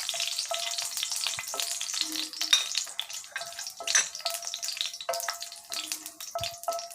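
Whole spices and dried red chillies sizzling in hot sesame oil in a cast-iron skillet. They are being stirred, with frequent clicks and short scrapes of the spatula against the pan over the steady hiss.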